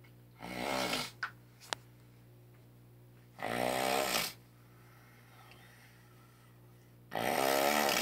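A sleeping man snoring: three snores, each under a second long, about three and a half seconds apart, with two short clicks just after the first.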